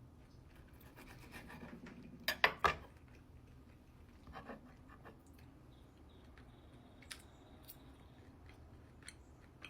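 Quiet eating sounds of steak with cutlery: faint scraping and rubbing, and a few sharp clicks about two and a half seconds in.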